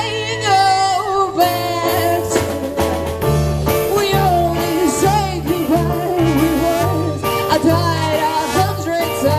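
Live band playing an upbeat number, with a stepping bass line and drums under a melodic lead line.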